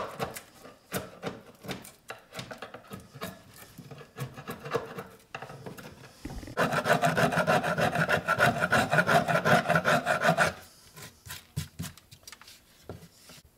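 A screwdriver tip scraping hardened Gorilla Glue out of the groove of a wooden drawer part in short, irregular strokes. From about six and a half to ten and a half seconds in, the strokes come in a fast, louder run.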